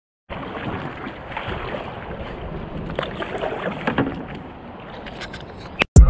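Water splashing and sloshing around a small wooden outrigger boat under way, with wind buffeting the microphone; an uneven rush with irregular louder splashes.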